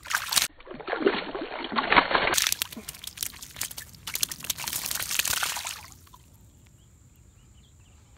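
A small bass splashing and thrashing in shallow water at the bank's edge after being released, loudest in the first two and a half seconds and dying away about six seconds in.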